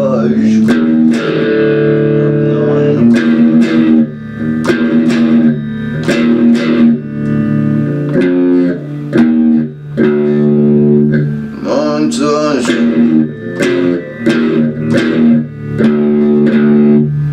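Electric guitar playing a rock riff of held chords, broken by short strums at a steady rhythm.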